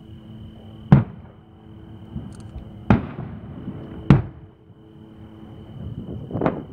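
Aerial firework shells bursting in the distance: four sharp booms, about a second in, near three and four seconds, and shortly before the end, each trailing off in a short echo.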